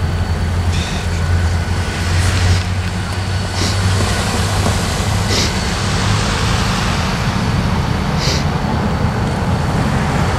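Diesel locomotive engine running as it slowly pulls a passenger train forward: a steady low hum with a few short high hisses every couple of seconds.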